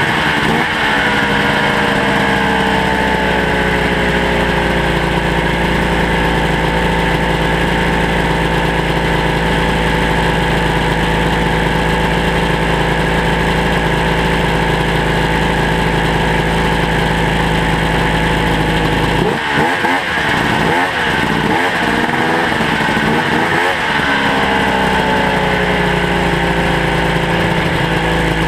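Ski-Doo Mach Z snowmobile's home-ported two-stroke engine running steadily at low revs as the sled creeps along. The revs settle down early on, there is a burst of quick throttle blips about two-thirds of the way through, and then the revs fall back.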